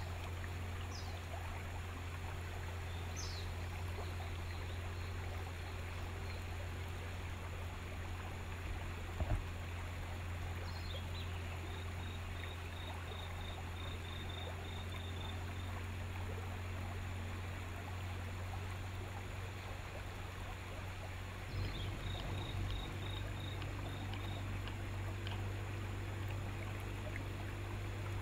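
A river boat's motor runs with a steady low hum under the rush of water and wind. Birds call over it with short high descending notes and two runs of quick, evenly spaced high notes, and a single knock sounds about nine seconds in.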